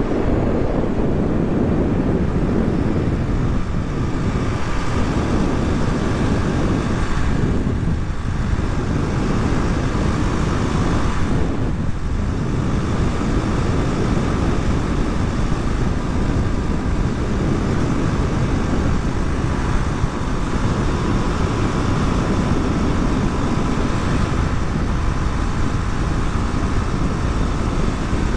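Suzuki DR250 single-cylinder motorcycle being ridden at road speed: a steady engine note under heavy wind rush, with two brief dips in the sound about 8 and 12 seconds in.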